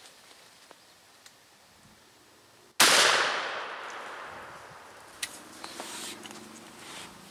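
A single shotgun blast about three seconds in, its report echoing through the woods and dying away over about two seconds; a few faint clicks and rustles follow.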